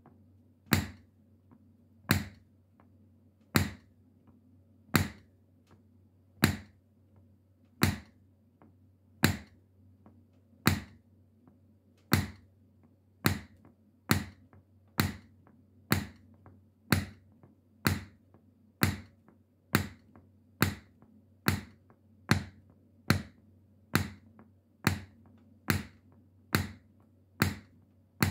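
Metal shoe taps clicking in single sharp strikes, one at a time, in an even fidgety rhythm: at first about one every one and a half seconds, then speeding up to a little under one a second from about halfway through.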